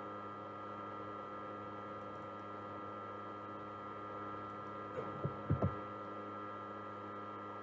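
Steady electrical hum with several fixed whining tones, the background of a desktop screen-recording microphone. About five seconds in come four short soft clicks or knocks close together.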